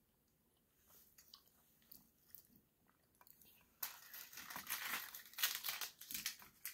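A plastic Toxic Waste sour candy drum being worked open by hand: a few faint clicks, then from about four seconds in a run of crinkling and crackling plastic.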